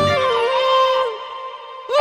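Background music: a sustained, gliding melodic line over a bass part that drops out about a second in, the music fading briefly near the end.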